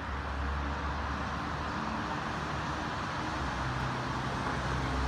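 Steady city traffic noise: a continuous wash of passing cars with a low rumble.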